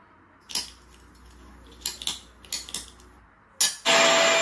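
Sound effect of a ceramic plate smashing, played over a speaker: six sharp crashes and clatters in the first three and a half seconds. Near the end a loud, steady whirring noise with a held hum starts suddenly.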